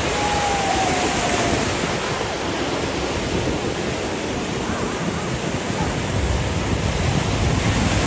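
Sea surf breaking and washing around in the shallows, a steady rushing noise, with some wind on the microphone.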